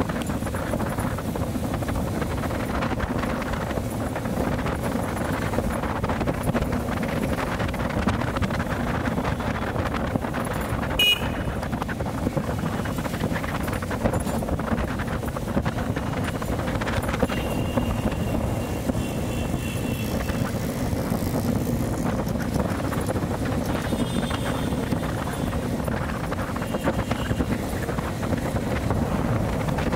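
Bajaj CT100 motorcycle's single-cylinder four-stroke engine running steadily while riding, heard from the rider's position with wind rushing over the microphone. A few brief high tones sound about eleven seconds in and again later.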